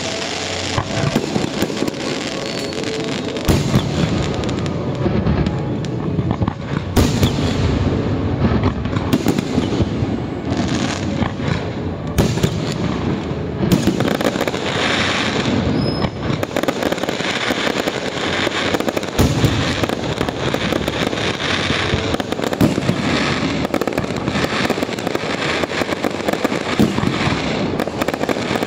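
Fireworks display: aerial shells bursting in a dense, near-continuous barrage of bangs and pops.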